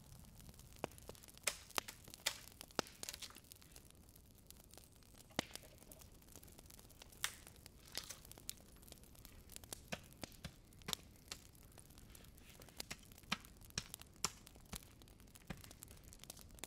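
Wood being worked by hand and with a hatchet: irregular sharp snaps, cracks and knocks, with some tearing.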